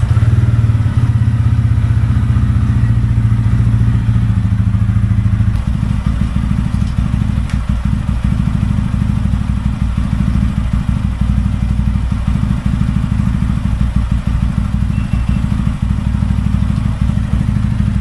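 TVS Ronin motorcycle's single-cylinder engine catching and idling steadily, heard up close from a handlebar-mounted camera. Its tone shifts lower about five and a half seconds in.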